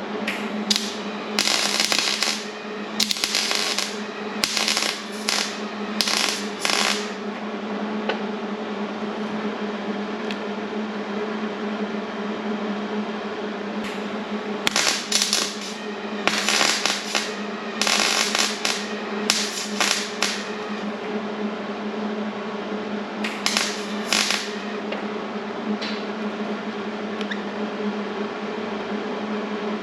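Welding arc crackling in a series of short bursts of about a second each, plug-welding sheet-metal car body panels, over a steady hum.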